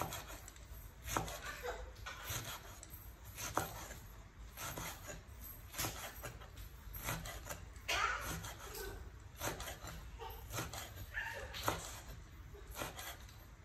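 A cleaver chopping pickled mustard-green stems on a wooden cutting board: irregular knocks of the blade on the board, about one or two a second.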